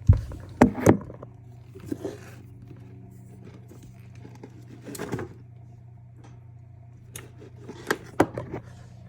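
Refrigerator running with a steady low hum, under several sharp clicks and knocks from the fridge being handled. The loudest knocks come about half a second to a second in, with another pair near the end.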